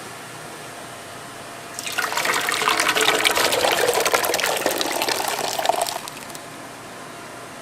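Water running or pouring for about four seconds, starting about two seconds in and stopping suddenly.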